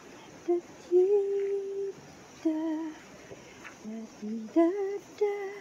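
A woman humming a tune in short phrases of held notes, stepping up and down in pitch.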